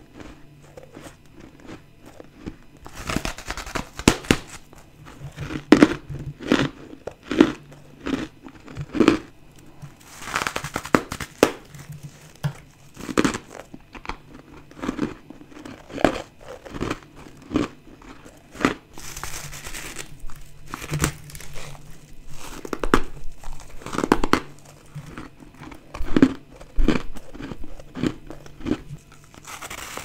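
Close-up bites and chewing of soft, powdery ice chunks: clusters of crunching, crackling strokes, starting about three seconds in.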